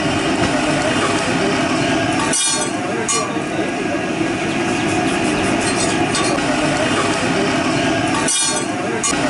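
Metal spatula scraping and clinking on a flat iron griddle (tawa), with a few sharp clinks over a steady background noise.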